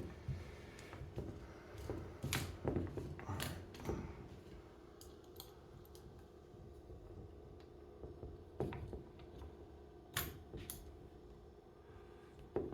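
Scattered metallic clicks and clunks from working a golf club loft-and-lie bending machine and its clamp, in a few clusters. The mechanism is stiff, and the owner thinks it needs oiling.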